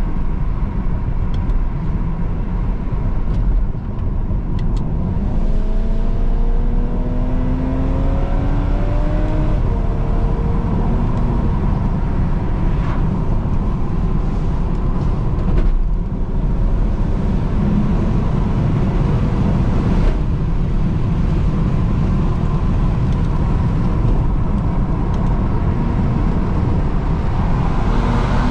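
2009 BMW 335i's twin-turbo 3.0-litre straight-six running through a straight-piped exhaust while driving. The engine pitch climbs under acceleration for a few seconds about a fifth of the way in, and a few short sharp exhaust pops come through the steady drone.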